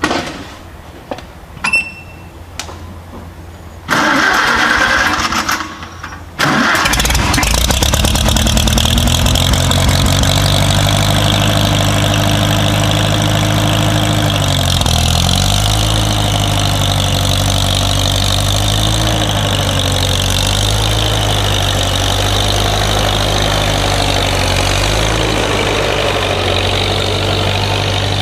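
Farmall H tractor's four-cylinder gasoline engine being cranked for about two seconds, then catching about six seconds in and running steadily. Its speed dips and recovers about halfway through. A few knocks come before the start.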